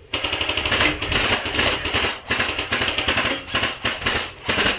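Airsoft gun firing on full auto close by: a continuous, dense rattle that starts suddenly and cuts off suddenly after about four and a half seconds.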